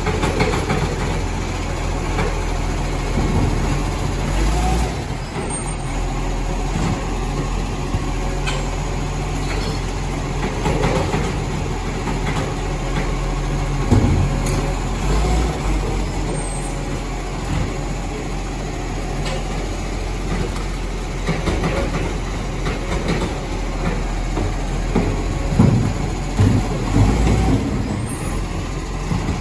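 Side-loading garbage truck's diesel engine running steadily while its automated arm grabs wheelie bins, lifts and empties them into the hopper and sets them back down. Scattered clunks and knocks of plastic bins and lids, louder about halfway through and in a cluster near the end.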